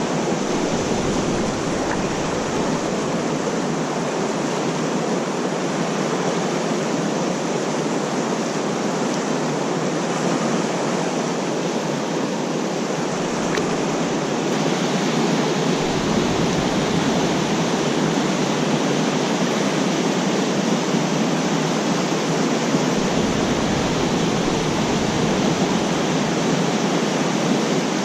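Steady rush of a creek running high, its current giving an even, unbroken hiss.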